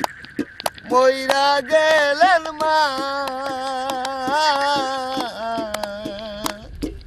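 A single voice singing a slow folk song of memory and loss, holding long notes with wavering ornaments, with a short break about a second in and the singing stopping near the end. Irregular sharp clicks sound throughout.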